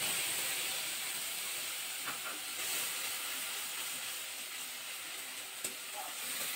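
Water-thinned spice paste sizzling hard in hot oil in a metal kadai, a steady hiss that slowly fades as the water in the paste boils off. A spatula stirs it, knocking sharply against the pan once near the end.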